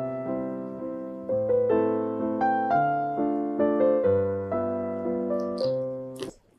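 Background music: a slow piano-like keyboard melody of held notes, each fading, that stops suddenly near the end, with a few faint clicks just before it stops.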